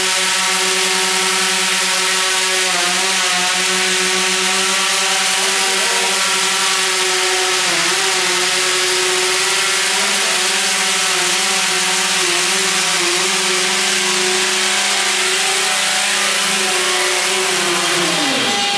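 Coaxial ducted-rotor drone hovering, its rotors giving a steady buzzing hum whose pitch wavers slightly now and then as the hover controller corrects, a sign of the position hold's remaining oscillation. Near the end the rotors spin down and the pitch falls steeply.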